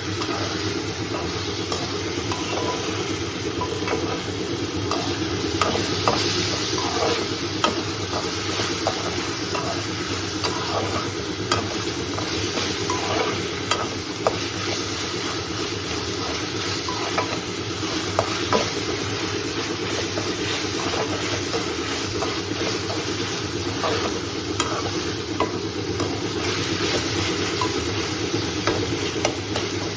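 Food sizzling in a pan while a spoon stirs it, with frequent light clicks and scrapes of the spoon against the pan over a steady frying hiss.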